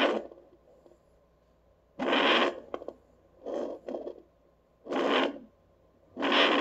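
Handheld fetal doppler's speaker giving a rhythmic swishing: a half-second whoosh about every second and a half, one of them doubled near the middle.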